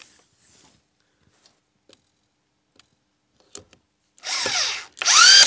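SKIL Masters 6940MK 520 W corded screwdriver with a collated autofeed attachment driving screws into a wooden board: a short burst of the motor a little after four seconds in, then a louder run about five seconds in, its whine rising and then falling as the motor spins down. A few faint handling clicks come before.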